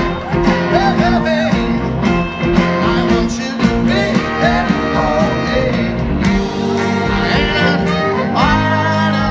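Live band playing on an open-air stage, heard from within the audience: a singer over guitar and drums, with a long held note near the end.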